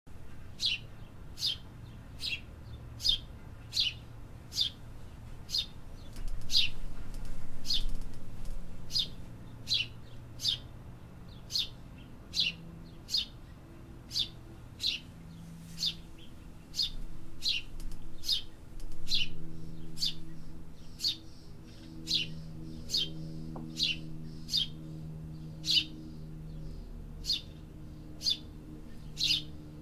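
A bird chirping over and over: short, sharp, high chirps repeating at an even pace, about every three-quarters of a second, over a low background hum.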